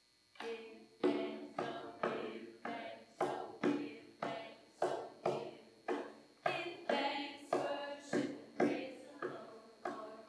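Music starting up: steady repeated struck chords, about two a second, each ringing out and fading.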